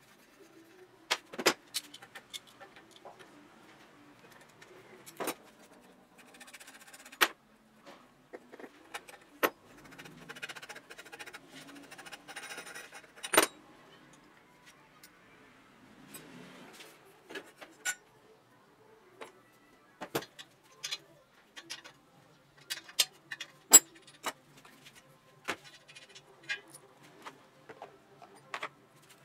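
Small metal bicycle parts clinking and tapping as a headset is dismantled by hand: scattered sharp clicks and knocks, with two short stretches of soft rattling.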